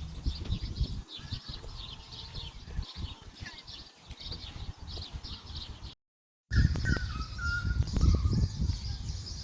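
Many small birds chirping in a dense, continuous chorus over a low rumble on the microphone. The sound cuts out for about half a second near six seconds in, then the chirping resumes with a louder rumble.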